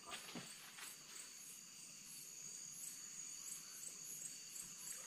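Faint chorus of night insects: a steady high trill with a higher chirp pulsing about three times a second over it.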